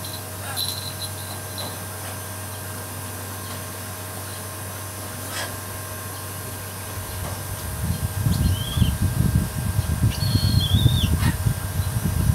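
Steady background hum, joined about seven seconds in by an irregular low rumble of wind buffeting the microphone. Two short high bird chirps come about eight and ten seconds in.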